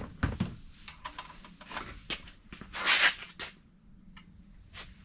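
Irregular metal clicks and knocks of hand tools being handled at the crankshaft nose of an aluminium engine block, with a louder rattling scrape about three seconds in.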